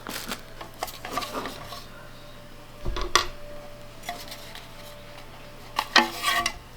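Handling noises of small light parts and wiring: scattered rubs and clicks, with a sharper knock about three seconds in and a louder scraping rub near six seconds, over a faint steady hum.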